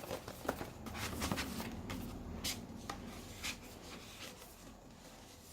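Soft rustling and rubbing of paper posters and their packaging being handled, with a few scattered light taps.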